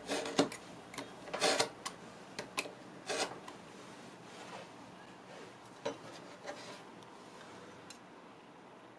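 Utility knife blade slicing through leather along a ruler on a cutting mat: three short scraping strokes in the first few seconds, then only light taps and clicks as the ruler and leather are handled.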